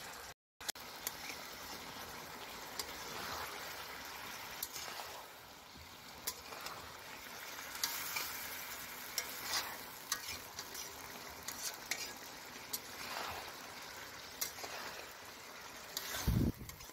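Chicken and potato curry sizzling as it is fried down in a large metal karai, with a spatula stirring and scraping through it and scattered clicks of metal on the pan. A short thump comes near the end.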